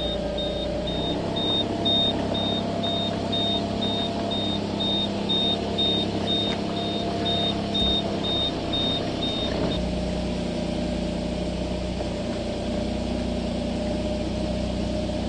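Kei car engine running at low speed through a tight manoeuvre, heard from inside the cabin. A high warning beep repeats about twice a second and stops about ten seconds in, as the engine note changes.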